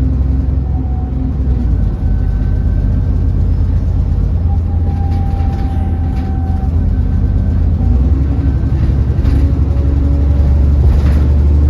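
Alexander Dennis Enviro400 double-decker bus heard from inside while moving: a steady low engine and road drone with thin whining tones over it, the vacuum-cleaner-like 'Hoover' whine this bus is known for.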